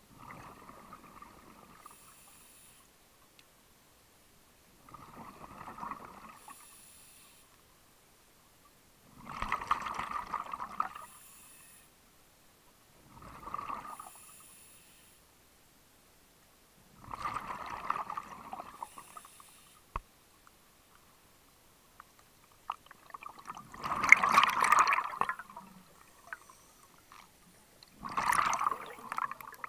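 Scuba diver breathing underwater through a regulator: a bubbling rush of exhaled air about every four to five seconds, seven times, with a short high hiss of inhaling between breaths. The bursts grow louder toward the end.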